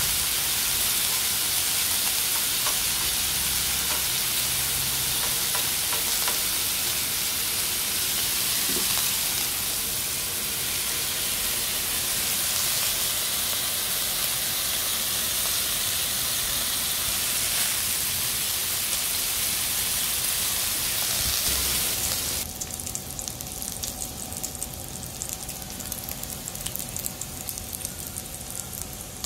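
Slices of pork belly frying on a hot grill pan with a steady sizzle. About 22 seconds in the sizzle turns quieter and crackly, with fat spattering.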